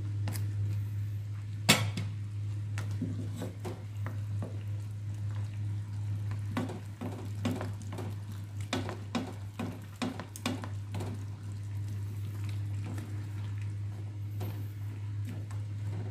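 Wooden spatula stirring a pan of simmering coconut-milk crab and shrimp stew, with sharp clicks and knocks against the pan and shells. The loudest knock comes about two seconds in, and there is a run of knocks in the middle, over a steady low hum.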